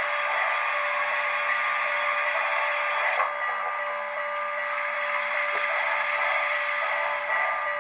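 HO scale model steam locomotive with an ESU sound decoder giving a steady steam hiss through its small speaker, over a constant thin whine.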